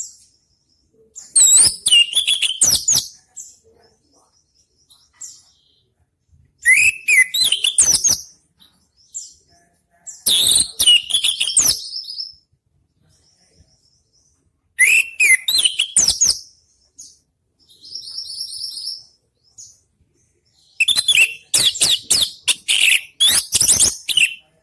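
Orange-headed thrush (anis merah) singing loud, varied phrases of rapid whistles, sweeps and trills. There are five bursts of a second or three each, separated by short pauses, and one softer repeated phrase between the fourth and fifth.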